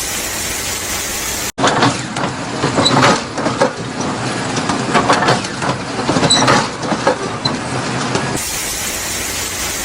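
Machinery noise: a steady hiss, then after a sudden cut a run of irregular clanks and knocks, then the steady hiss again near the end.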